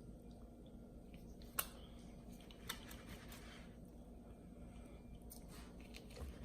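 Faint wet squishing and a few sharp clicks as a meat injector is pushed into and worked through a raw brisket, over a low steady hum.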